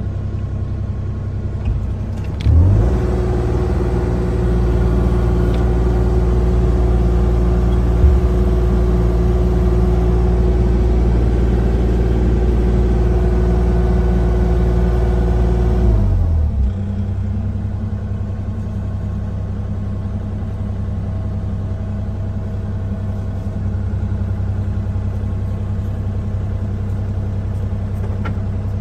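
Kubota KX040-4 mini excavator's four-cylinder diesel engine running at low idle, throttled up about two and a half seconds in to a steady higher speed, then brought back down to idle at about sixteen seconds.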